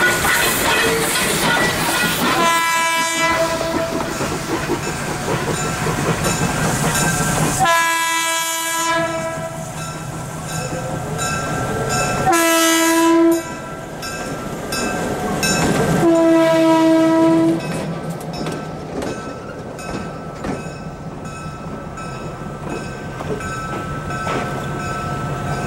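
Diesel switcher's air horn sounding four blasts, each a second or so long and four to five seconds apart, as the EMD locomotive rolls up and past. A steam locomotive is working at the start, and the diesel's engine runs steadily under the later part.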